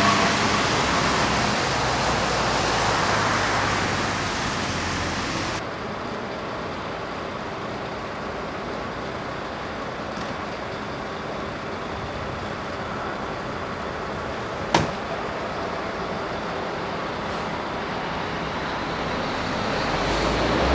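Steady rushing noise of road traffic, with a single sharp click about fifteen seconds in.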